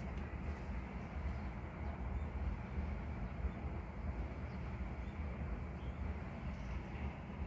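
Steady low rumble with a fainter hiss above it and no distinct events: outdoor background noise.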